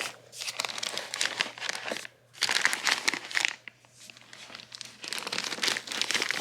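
Packaging crinkling and rustling as it is handled, in stretches broken by two short pauses, about two seconds in and about four seconds in.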